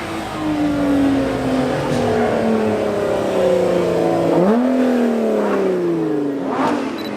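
A car engine running with its pitch sliding slowly down, jumping up sharply about four seconds in as the revs rise, then falling away again.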